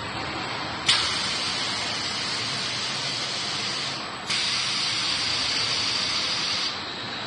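Automatic in-line pallet stretch wrapping machine running, with two long hisses: the first starts abruptly about a second in and lasts about three seconds, the second starts just after it stops and runs for about two and a half seconds.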